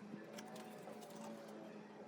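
Faint, wavering animal whine over a steady low hum.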